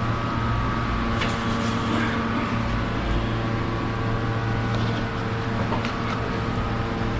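Steady mechanical hum with a low drone and a few higher steady tones, broken by a few short clinks about a second in and again near six seconds in.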